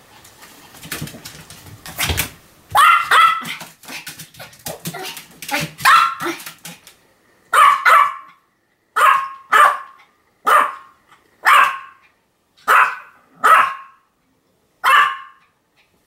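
Pomeranian barking over and over, short sharp barks, many in quick pairs. For the first few seconds the barks are mixed with a scatter of clicks, then they come out cleanly one after another with short gaps.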